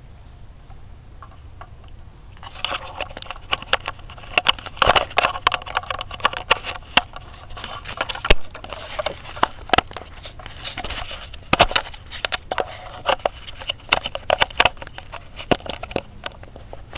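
Handling noise of a camera being gripped and moved: fingers rubbing and knocking on the body next to its microphone. From about two and a half seconds in, a dense, irregular run of clicks, crackles and scrapes.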